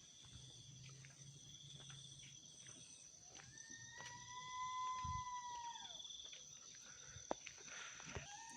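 An unidentified night animal's whimpering, whistle-like call, held about two and a half seconds, gliding up at the start and dropping away at the end. A second call begins near the end, over steady cricket chirring.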